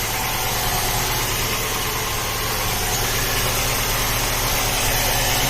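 2012 Ford Fusion engine idling steadily, its accessory drive belt running quietly on a newly replaced idler pulley; the bearing noise from the worn old pulley is gone.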